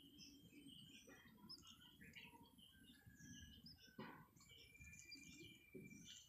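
Faint, scattered bird chirps and short tweets, one held a little longer about four and a half seconds in, over low rustling from a hand touching a plastic basket.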